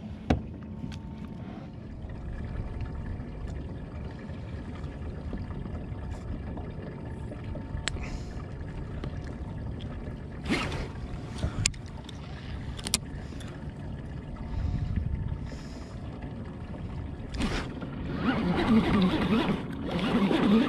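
Wind and water noise around a kayak, broken by a few sharp handling clicks and knocks. Near the end a Sougayilang round baitcasting reel is cranked, a steady mechanical rattling whir as line is wound in.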